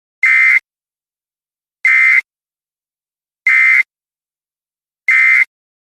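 Four short, buzzy electronic data-tone bursts, about a second and a half apart, with silence between them: Emergency Alert System end-of-message tones closing the alert.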